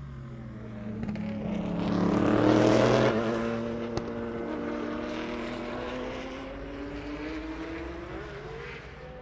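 A prototype or GT race car passing through a chicane on a wet track, loudest about two to three seconds in, with tyre hiss. Its engine note then carries on more quietly as it accelerates away, its pitch climbing near the end.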